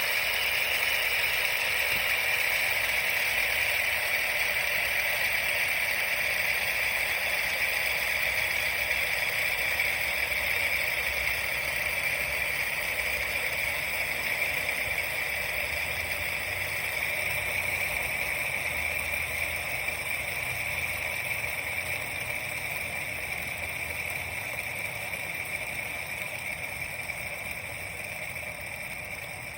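Heavy rain pouring down in a steady, dense hiss that slowly grows quieter through the second half.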